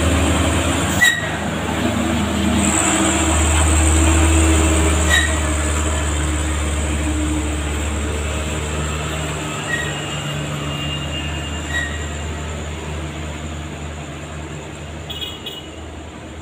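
Diesel engine of a loaded light truck running as it drives past and away, a deep steady rumble that fades over the second half, with a few sharp clicks along the way.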